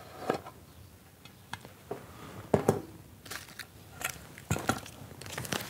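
Hands handling a small round tin and paper: scattered sharp clicks and taps, growing into paper rustling near the end.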